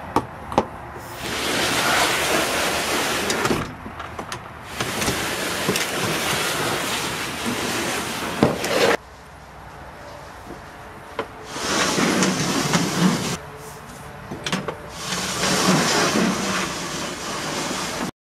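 Scraping of a hard plastic case and then a plastic five-gallon bucket being dragged and pushed across a ribbed truck bed floor with a reaching pole. It comes in four long scrapes of a few seconds each, with a few sharp knocks from the pole and the load.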